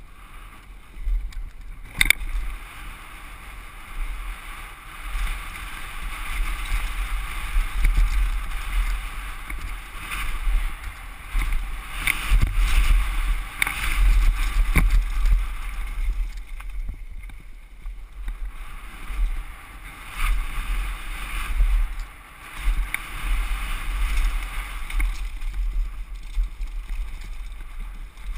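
Wind buffeting a helmet-mounted camera during a downhill mountain-bike ride, with the rush and rattle of tyres and bike over a rough dirt trail. Sharp knocks from bumps come about two seconds in and again several times around the middle.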